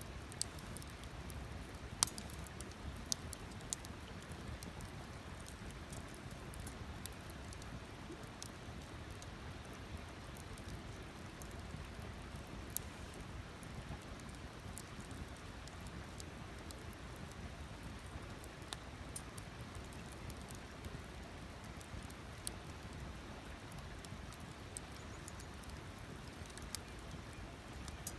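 Wood campfire crackling: scattered sharp pops and snaps at irregular intervals over a low, steady rushing hiss.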